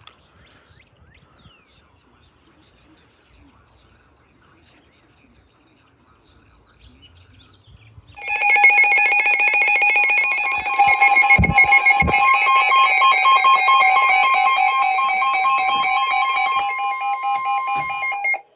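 Faint background noise, then about eight seconds in a loud, steady Emergency Alert System attention tone from a weather radio, several fixed tones sounding together. It holds for about ten seconds, with two low thumps partway through, and cuts off just before a severe thunderstorm warning is read. The tone announces a warning.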